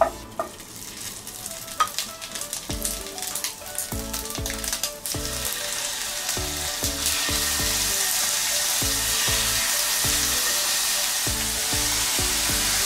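Thin-sliced beef sizzling as it is laid into a hot non-stick frying pan around a mound of rice. Light taps of a wooden spatula and chopsticks on the pan come in the first few seconds. The sizzle swells about five seconds in, grows again a couple of seconds later, then holds steady.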